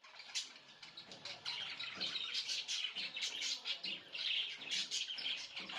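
Pet budgerigars chirping continuously, a dense run of quick, overlapping high chirps.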